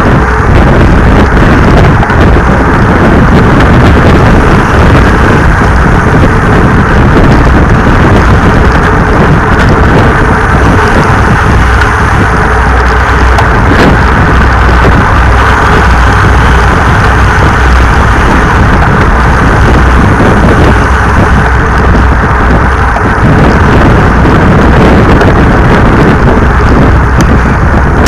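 Loud, steady wind buffeting on the microphone of a bicycle-mounted camera riding in a pack of racing cyclists at about 35 km/h.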